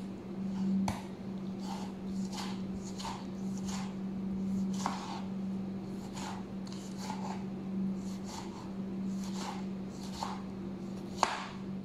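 Kitchen knife slicing through a tomato onto a plastic cutting board, a short cutting stroke every half second to second, over a steady low hum. One sharper knock of the blade on the board near the end.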